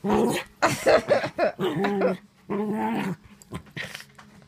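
Puppy play-growling in several pitched, bending bursts over about three seconds, with a shorter one near the end, while mouthing a person's hand.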